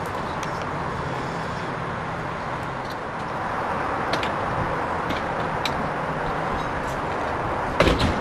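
Steady outdoor background noise with a few faint clicks, then a loud thump near the end.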